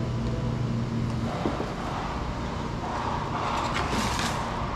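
Street vehicle noise: a steady low engine hum that stops about a second in, then a swell of noise as a vehicle passes, three to four seconds in.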